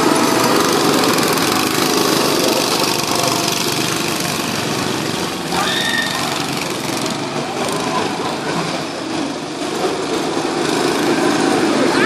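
Several small-engined go-karts running round the track together, their engines passing close, fading a little as the karts head away down the track and growing louder again as they come back round near the end.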